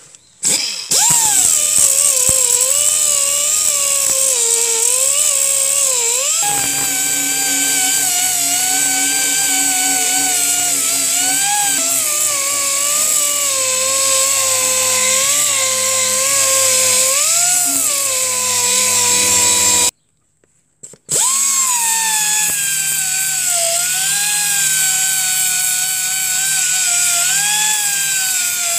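Silverline 50 mm mini pneumatic orbital sander running with an 80-grit pad pressed against rusty steel: a high air-tool whine whose pitch sags and recovers as it bites. It starts about a second in, cuts out for about a second two-thirds of the way through, then runs again.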